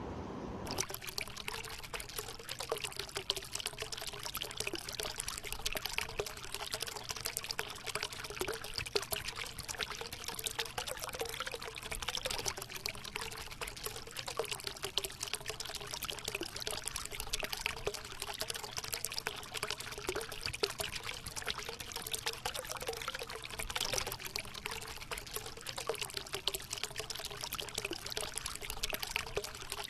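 Fresh-water spring spilling from between rocks into a shallow pool: a steady pouring, trickling splash of falling water.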